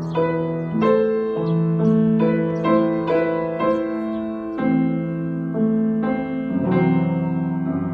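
Gentle background piano music: single melody notes struck about twice a second over sustained chords.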